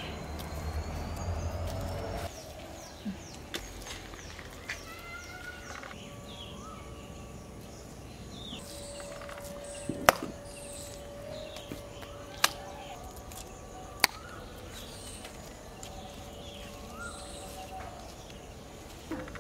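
Wet cow dung slapped by hand onto a wall to make dung cakes: three sharp slaps about two seconds apart in the second half, with a few lighter ones earlier, over small birds chirping.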